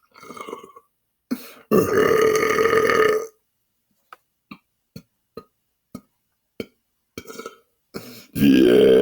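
A man belching on purpose: one long, deep belch of about a second and a half, a few faint clicks, then a second long belch starting near the end.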